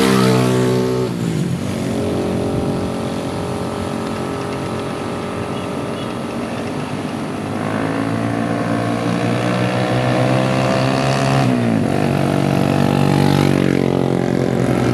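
Heavy truck's Mitsubishi diesel engine labouring up a steep climb. Its pitch drops sharply about a second in and again about three seconds before the end, then climbs back slowly as the revs build.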